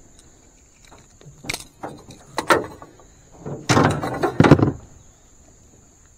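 Knocks and clattering thumps in an aluminum jon boat as a freshly caught bass is handled, a few single knocks first and a louder, denser bout of clatter about three and a half to four and a half seconds in. A steady high insect drone runs underneath.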